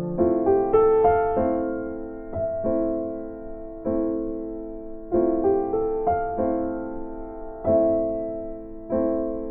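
Slow, gentle piano music: chords struck about every second or so, each left to ring and fade before the next.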